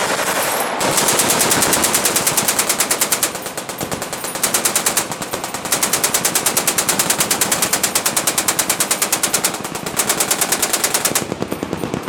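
Machine gun firing long fully automatic bursts at about ten shots a second, with a few brief breaks, easing off near the end.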